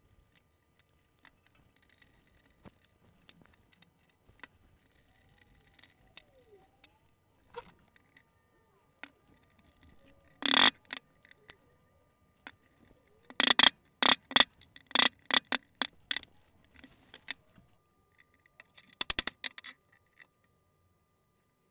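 A hammer tapping wooden plugs into a glued chair joint. There is one sharp strike about ten seconds in and a run of sharp strikes a few seconds later. Near the end comes a quick flurry of light taps, with quiet handling of parts in between.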